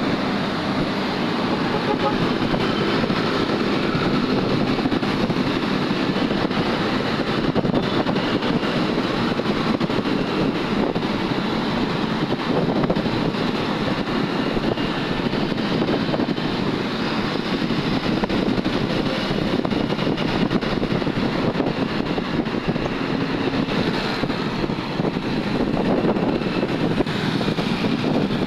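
Steady road traffic noise heard on the move, with wind on the microphone, passing close beside a coach among motorcycles and cars.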